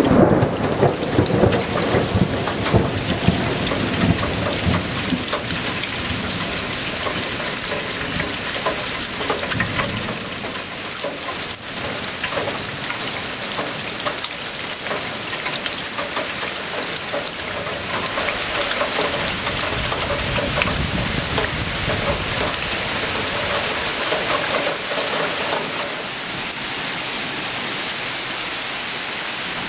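Steady rain falling in a thunderstorm, with a rumble of thunder dying away in the first few seconds and fainter low rumbles later.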